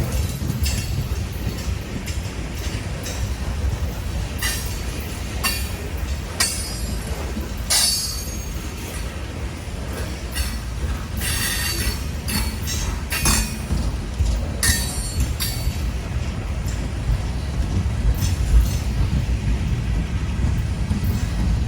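Freight train cars rolling past on a climbing grade: a steady low rumble of wheels on rail, with short bursts of high-pitched wheel squeal every few seconds.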